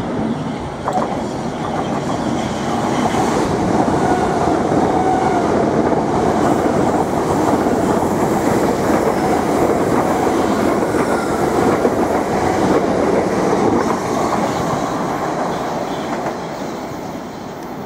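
Southern Class 377 electric multiple unit running past close by along the platform. It builds over the first few seconds, stays loudest for about ten seconds, then fades as it draws away.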